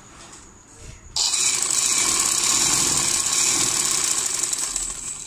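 Ladybird sewing machine starting suddenly about a second in and running fast and steady, stitching through fabric and elastic, then slowing and stopping near the end.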